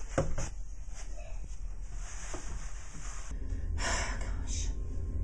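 A person breathing audibly, with a couple of sharp breaths in and out about four seconds in, over a low steady hum.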